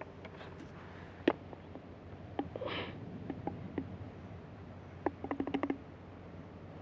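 Small plastic handling sounds from a powder bottle and a plastic measuring cup as stringing powder is poured out. There is one sharp click about a second in, a soft rustle near the middle, and a quick run of about eight light taps a little after five seconds.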